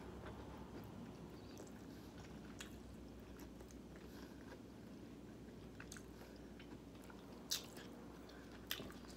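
A person chewing a mouthful of fried chicken close to the microphone, soft and low, with a few short sharp mouth clicks; the loudest comes a little past seven seconds in.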